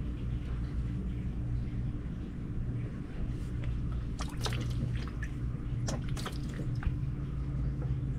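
A steady low machine hum, with a few short squirts and splashes of lemon juice from a squeeze bottle landing on the fibreglass hull about halfway through.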